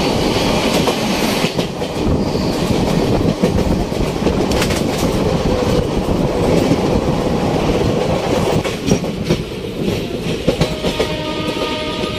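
Passenger train running at speed, heard at an open coach door: a steady rumble of wheels and rushing air with clickety-clack over rail joints, passing close alongside freight wagons at the start. The clatter gets busier as the train runs over the points into a station yard, and a steady pitched tone comes in near the end.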